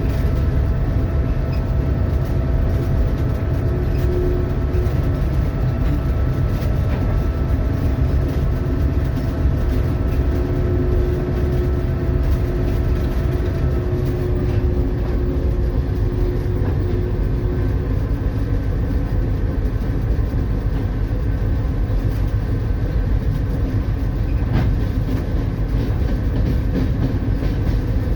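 Locomotive running under way with the ballast train: a steady low rumble with droning engine tones, one of which drops slightly in pitch about halfway through.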